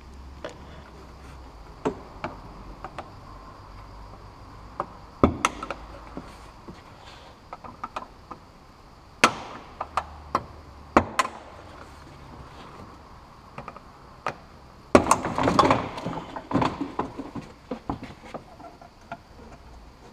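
Scattered clicks and knocks of hands working loose a car's plastic rear trim and fasteners, with a denser stretch of clattering and rubbing about fifteen seconds in.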